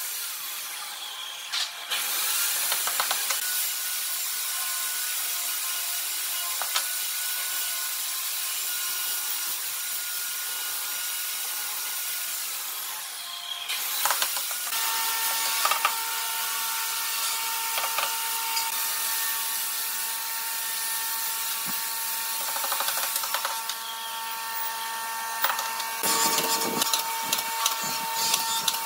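Wooden mallet tapping notched wooden lattice slats together, with scattered wooden knocks over a steady hiss. Near the end, a quick run of sharp clicks as a pneumatic brad nailer comes into use.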